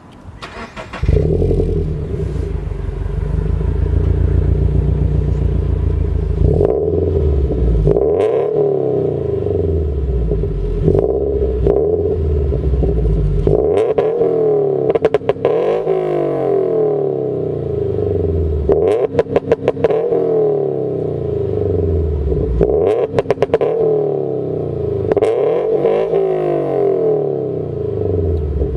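Toyota GT86's flat-four boxer engine, fitted with an unequal-length exhaust manifold, overpipe and cat-back exhaust, starting about a second in and running steadily, then revved again and again, the pitch climbing and falling with each blip. Three times the revs break into a rapid stutter.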